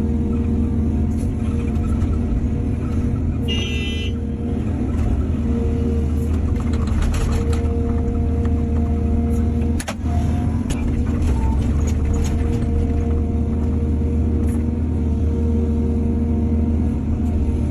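Heavy diesel machinery running steadily, an excavator loading a dump truck. A short high squeal sounds about three and a half seconds in, and a single sharp knock comes near the middle.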